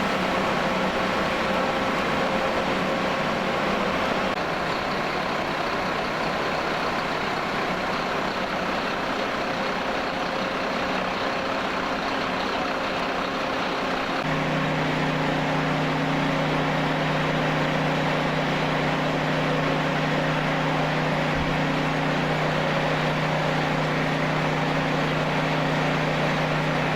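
Engines running steadily: a continuous noise with a low, even hum, joined about halfway through by a stronger steady drone.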